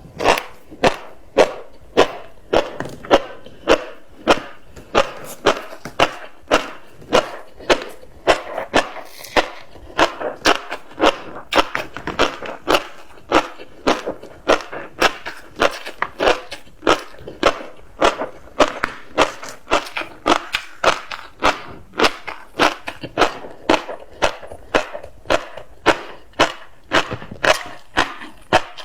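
Close-up crunching of tobiko (flying-fish roe) being chewed, with sharp pops and crunches about twice a second in a steady chewing rhythm.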